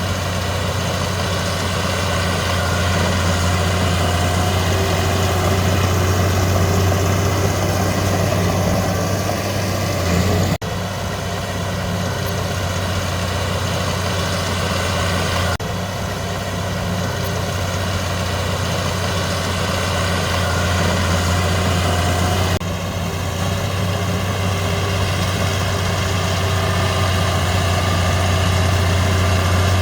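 Heavy diesel earthmoving machinery running steadily with a deep low hum, the sound changing abruptly three times.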